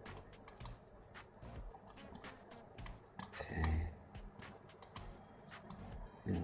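Light, irregular clicking and scraping of a lock pick working the pins of a six-pin Yale pin-tumbler cylinder under tension, with one louder knock about three and a half seconds in.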